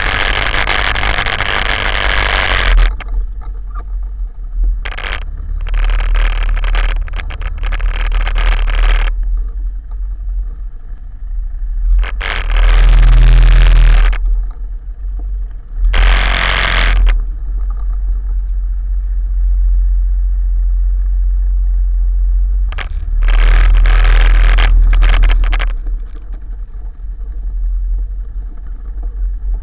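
Quad bike (ATV) engine running at low speed on a rough track, a steady low rumble broken by several loud bursts of rushing noise.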